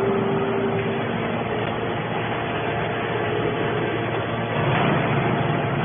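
YDF-63 hydraulic scrap-metal baler running: the steady hum of its motor and hydraulic pump, with a clear tone that fades out about a second in.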